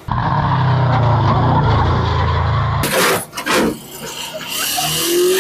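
Loud four-cylinder engine of a B18-swapped Honda Civic running hard at steady revs. After an abrupt cut, tires squeal and hiss as the car slides.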